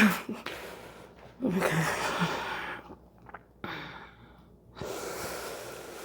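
A chiropractic patient sighing and breathing out hard. About a second and a half in there is a breathy groan that falls in pitch, then two long exhales.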